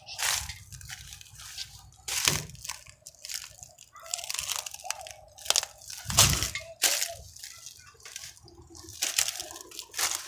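Irregular crunching, rubbing and knocking noises from a phone being handled and carried close to its microphone. The loudest crunch comes about six seconds in.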